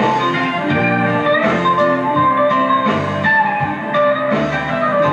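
Live band music: a solid-body electric guitar plays a lead line of quickly changing notes over the rest of the band.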